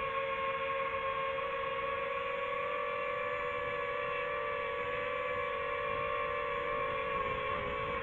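Hovering quadcopter drone's motors and propellers: a steady whine of several held tones, wavering slightly near the end.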